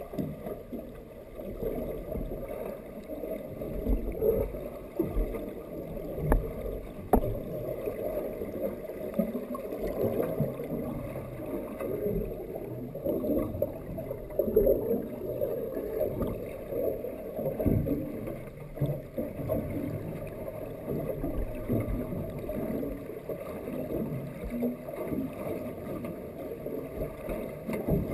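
Muffled underwater water noise: an uneven low rumble and sloshing heard through a waterproof action-camera housing, with two faint clicks about six and seven seconds in.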